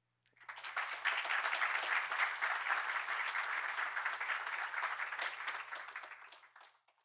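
Audience applauding, many hands clapping together; it swells within the first second and dies away near the end.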